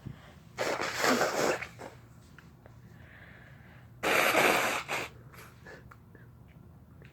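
Two sneezes about three seconds apart, each a sudden burst of breath lasting about a second, part of a sneezing fit brought on by sniffing chhinkni sneezing powder.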